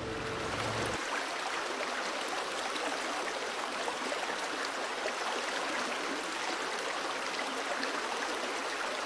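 Steady rush of falling water from a waterfall, an even hiss with no break.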